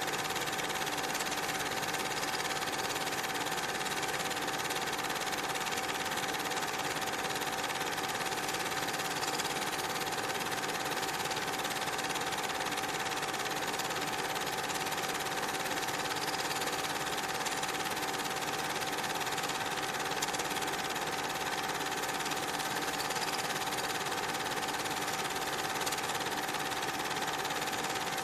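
Cine film projector running steadily: a continuous mechanical whirr with a constant hum and film hiss, unchanged throughout.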